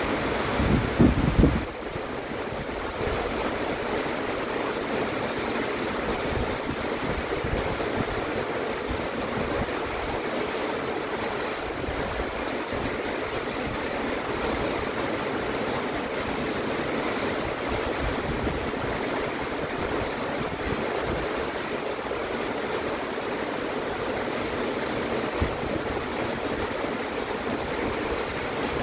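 Heavy rain falling steadily, a dense even hiss of downpour. About a second in, a brief low rumble is the loudest moment.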